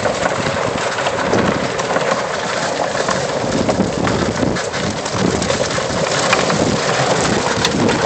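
Golf cart tires rolling over a trail of dry fallen leaves and gravel: a loud, steady, dense crackling crunch.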